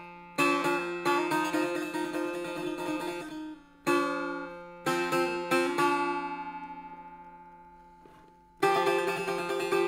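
Setar played solo in free rhythm: the dar amad of Abu Ata, plucked phrases with notes left to ring and fade. A few quick phrases come in the first half, then a single note dies away slowly before a new phrase starts near the end.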